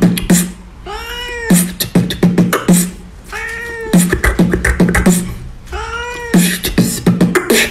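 Mouth-made beatbox rhythm of quick kick-and-snare hits, with a cat's meow, rising then falling in pitch, dropped in three times about every two to three seconds as part of the beat.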